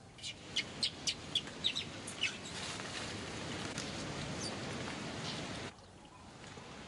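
A quick run of short, high-pitched animal chirps or squeaks, about ten in two seconds, followed by a steady rushing noise that cuts off suddenly near the end.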